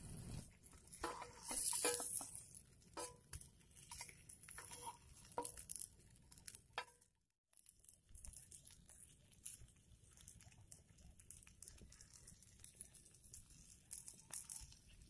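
Chicken burger patties sizzling and crackling in hot oil in a frying pan over a wood fire: a dense run of small pops over a steady hiss, cutting out briefly about halfway.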